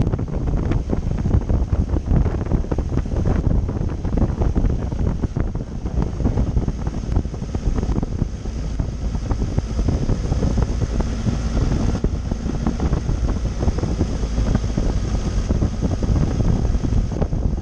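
Wind buffeting the microphone of a motorcycle on the move: a steady, heavy rushing noise, strongest in the low end.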